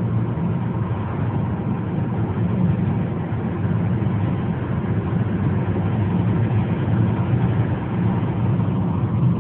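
Car driving at highway speed, heard from inside the cabin: a steady, loud rumble of tyres, engine and wind.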